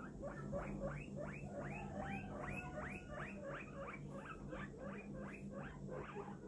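Guinea pig wheeking: a fast series of short rising squeals, about three a second, over a low steady hum.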